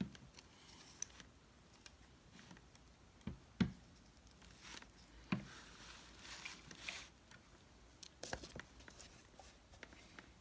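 Gloved hands handling a preserved fetal pig specimen on a table: several soft knocks, the sharpest about three and a half seconds in, with light rustling between them.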